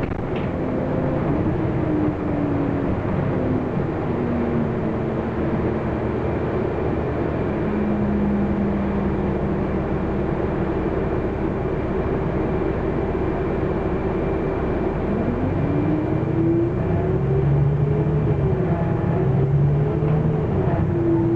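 Inside the cabin of a Renault PR112 city bus on the move: engine and drivetrain running over steady road and tyre noise, with a whine that falls in pitch over the first few seconds and climbs again from about two thirds of the way through.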